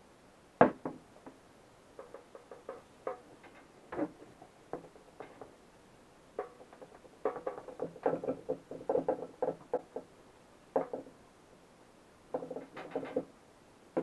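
A vinyl-jacketed dock power cord being handled and wiped with a rag on a plastic-sheeted table: irregular taps, knocks and rustles, with a sharp knock about half a second in and a quick run of rubbing clicks in the middle.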